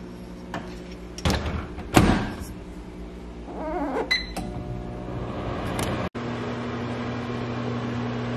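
Over-the-range microwave oven: the door is shut with two clunks, a keypad button beeps once, and then the oven starts running with a steady low hum.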